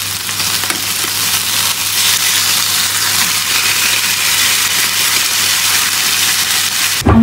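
Chicken breast fillets sizzling as they fry in a little oil in a frying pan, a steady hiss that cuts off abruptly near the end.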